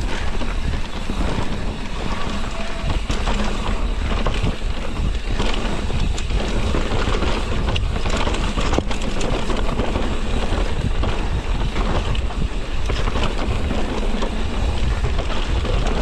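Wind buffeting the microphone of a mountain bike descending a dirt trail, over tyre noise and the bike's rattles, with scattered knocks from bumps in the trail.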